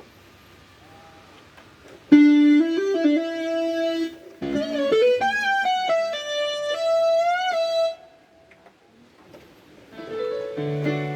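Korg PS60 performance synthesizer playing a single-note lead with pitch bends, in two phrases, with a short pause between them. After a quiet gap, sustained chords begin near the end.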